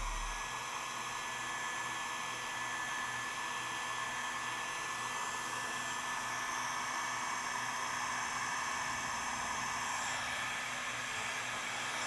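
Heat gun running steadily, a rush of air with a steady high whine, blowing hot air over heat-shrink tubing on a paracord zipper pull.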